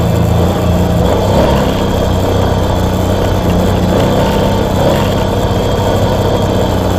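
Kawasaki Brute Force 750 ATV's V-twin engine running steadily while riding a dirt trail. The engine note shifts up and down a couple of times with the throttle.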